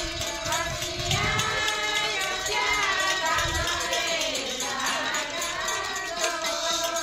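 Voices singing a Gujarati Gor Maa devotional song in long, gliding held notes, over a steady rhythm of jingling percussion.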